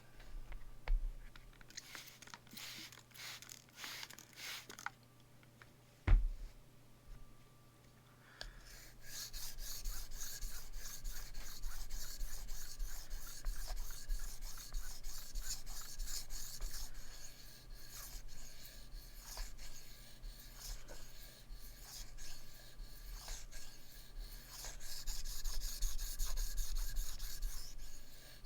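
S35VN steel knife blade being sharpened on a Shapton 1000-grit whetstone: the edge scrapes back and forth on the stone in quick, continuous strokes from about eight seconds in. Before that, a few scattered strokes and a single sharp knock about six seconds in.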